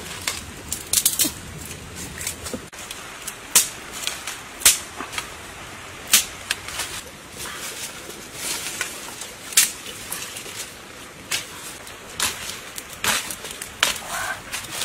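Open wood fire of dry sticks crackling: sharp, irregular snaps and pops a second or so apart, some louder than others.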